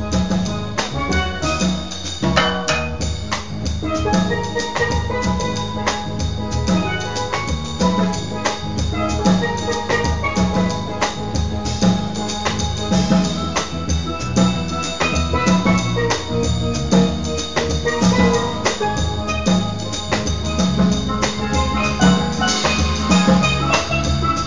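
Music with a steelpan melody over a steady drum kit beat.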